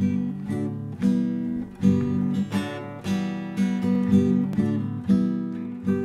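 Intro music: an acoustic guitar strumming chords in a steady rhythm.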